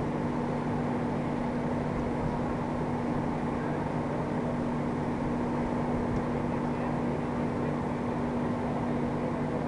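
Fire trucks' diesel engines running steadily at idle as a constant low drone, keeping the raised aerial ladders powered.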